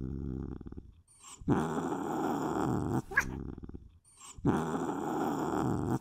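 Domestic cat growling in a low, rumbling growl: one growl fades out about a second in, then two matching growls of about a second and a half each follow with short pauses between them.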